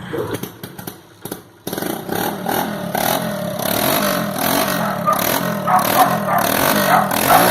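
Yamaha Crypton motorcycle's single-cylinder four-stroke engine starting after a few short clicks, catching about a second and a half in, then running and revved up and down. A small hose has been pulled off so that it sounds as if it has no exhaust.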